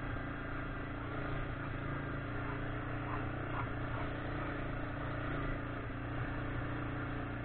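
1999 Yamaha Grizzly 600 ATV's single-cylinder four-stroke engine running steadily while the quad rides along a dirt trail.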